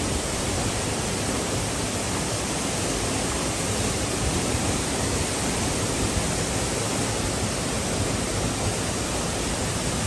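Mountain stream rushing over boulders and small cascades: a steady, even rush of whitewater.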